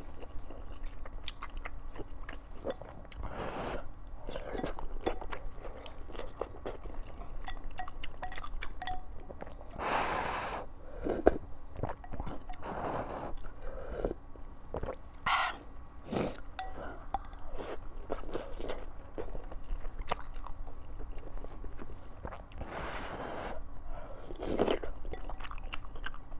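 Close-miked eating of wontons in chili-oil soup: chewing and biting with wet mouth smacks, and broth sipped from the bowl in a few longer noisy draws.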